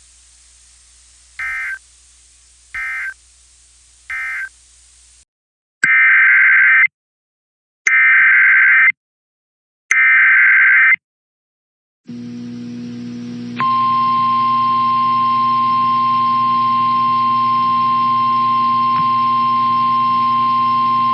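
Emergency Alert System tones. First come three short, quiet data bursts that end the previous message. After a cut come three louder one-second bursts of the SAME digital header for the next alert. From about 13 seconds in, a long steady 1050 Hz weather-radio warning alarm tone plays over a low radio hum, stopping shortly before the next warning is read.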